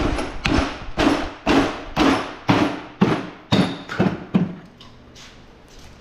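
Repeated metal knocks on a manual transmission case, about two a second, each ringing briefly, as a tool works the case halves apart. The knocks stop about four and a half seconds in.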